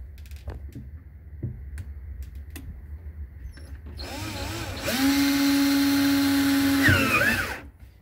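Ryobi cordless drill motor spinning up to speed, running at one steady pitch for about two seconds, then winding down and stopping. It follows about four seconds of low background with a few faint clicks.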